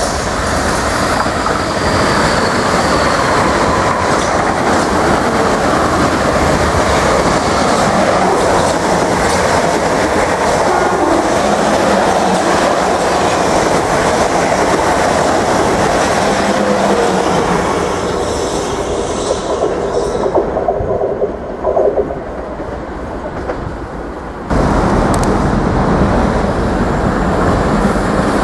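Electric multiple units, a Class 450 then a Class 444 Desiro, running past at speed. There is a continuous rush of wheels and running gear with clatter over rail joints and points, and it fades off about three-quarters of the way through. After an abrupt cut, a Cross Country Voyager diesel-electric unit approaches with its engines running.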